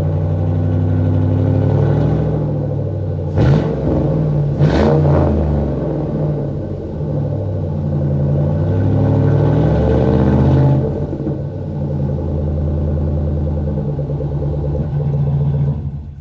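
2006 Chevy Silverado's LS V8 exhaust through a Flowmaster Super 44 muffler with rolled-end tips, idling and blipped twice sharply about three and a half and five seconds in. Then a slower, longer rise in revs before it settles back to idle.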